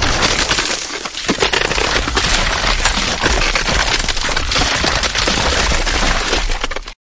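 Ice cracking: a dense, continuous run of crackles and snaps over a low rumble, stopping abruptly near the end.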